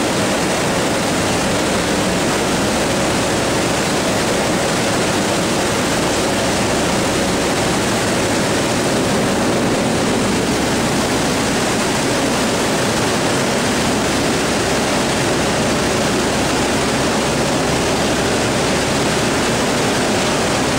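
Steady roar of wind and turboprop engine noise at the open ramp of a C-130 Hercules transport in flight, unchanging throughout.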